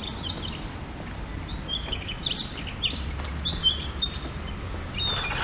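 Small birds chirping in short scattered calls over a steady low rumble of outdoor background noise.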